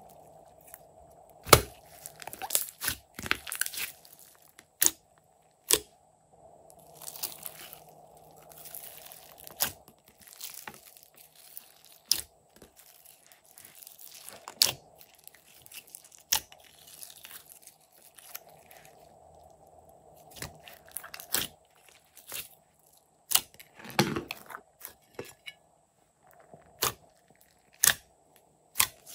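Glossy slime squished, pressed and pulled by hand, giving irregular wet crackles and sharp popping clicks.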